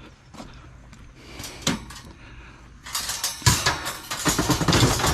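Scrap metal being shifted and knocked about: a few light clicks, then about three seconds in a dense clatter of knocks and rattles with one heavier thump.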